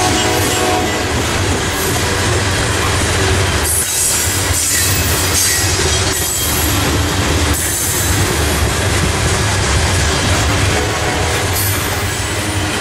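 Freight train of open-top hopper cars rolling past close by: a steady rumble and rattle of steel wheels on the rail, with faint high wheel squeal near the start and again near the end.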